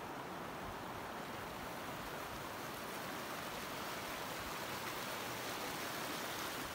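Steady rushing of a shallow mountain stream flowing over stones.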